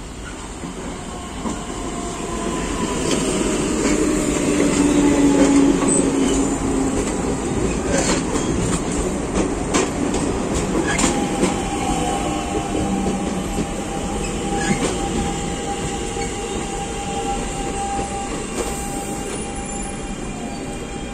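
SuperVia series 3000 electric multiple-unit train pulling into the station and braking to a stop. It grows louder to a peak about five seconds in, then eases off as it slows, with a run of clicks from the wheels over rail joints partway through and a long steady whine as it brakes.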